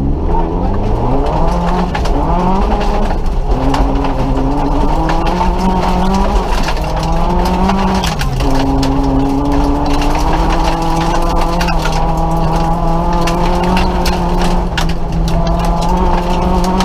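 Nissan Micra rally car's engine heard from inside the cabin, accelerating hard through the gears, the revs climbing and then dropping at each gear change before settling into a steady high note. Sharp clicks and knocks run over it throughout.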